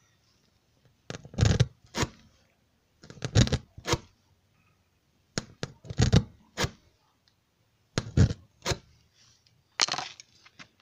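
Spiral reamer from a tyre plug kit being pushed and pulled through a puncture in a car tyre's tread, scraping against the rubber. The scraping comes in five bouts, roughly every two seconds, each of two or three quick strokes.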